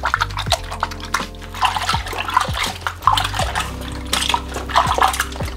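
Water splashing in irregular bursts as gloved hands rub and wash pieces of shark in salted turmeric water in a glass bowl, over background music with steady low notes.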